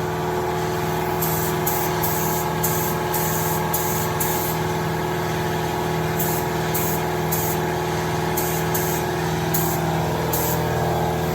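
Paint spray gun hissing in many short bursts, about a third of a second each, as its trigger is pulled again and again to lay paint on the engine bay, over a loud, steady machine hum.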